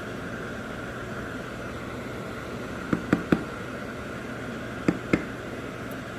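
Steady fan-like hum with a faint hiss in a kitchen, broken by short sharp knocks: three in quick succession about three seconds in, and two more about five seconds in.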